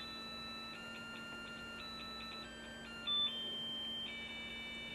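A simple electronic tune of held beeping notes that step up and down in pitch every half second or so, played by the homemade light orb alarm clock in its music mode, with a steady low electrical hum beneath.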